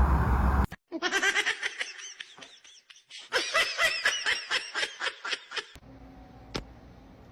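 Background music that cuts off, then a person laughing in two bouts of rapid, pulsing laughter, the second starting about three seconds in.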